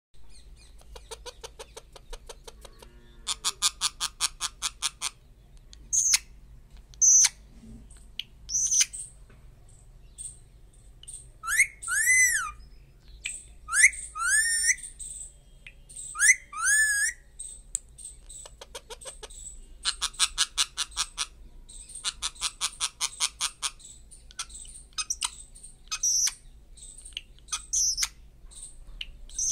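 Indian ringneck parakeet calling at close range: rapid runs of clicks, short sharp high calls, and a few whistles that rise and fall in the middle.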